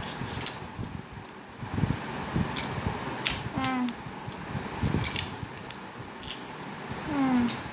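Wooden jigsaw puzzle pieces clicking and tapping against a tile floor as they are pulled out and shuffled around, a string of short sharp knocks. A brief voice sound comes twice, about halfway through and near the end.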